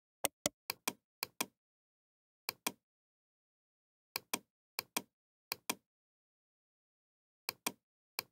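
Computer mouse double-clicking: about nine pairs of short, sharp clicks, the two clicks of each pair about a fifth of a second apart, with silence between the pairs.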